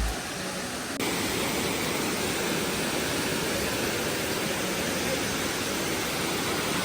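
Amicalola Falls' cascade rushing steadily, a constant roar of falling water that gets a little louder about a second in.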